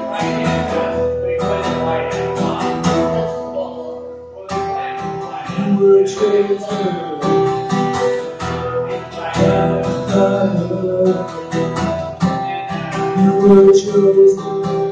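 Acoustic guitar strummed in a steady rhythm, with a man singing over it at times; the strumming eases briefly about four seconds in.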